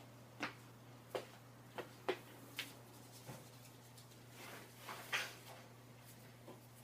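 Quiet handling noises: about eight or nine light, irregular knocks and clicks over a faint steady hum.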